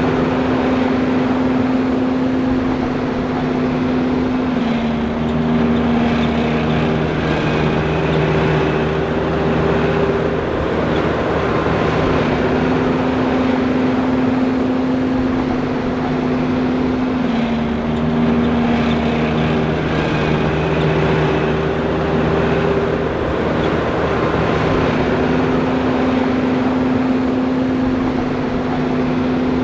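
John Deere 5820 forage harvester running steadily, a loud machine drone whose tones step down slightly in pitch and back up again every ten to twelve seconds.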